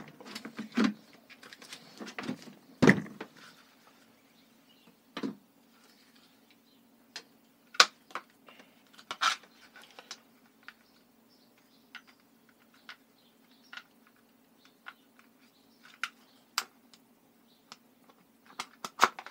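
Scattered clicks and a few heavier knocks of hard plastic parts being handled and unclipped from a compact electric pressure washer, over a faint steady low hum.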